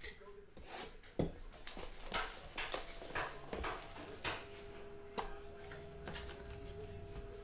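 A cardboard 2020 Donruss Elite card box being torn open and handled: a string of sharp rips, taps and rustles as the box is opened and its foil-wrapped packs are slid out. A faint steady hum comes in about halfway through.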